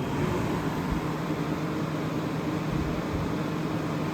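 1983 Gibson SlumberMaster window air conditioner running fan-only on high speed, compressor off: a steady rush of air from the blower with a low hum under it.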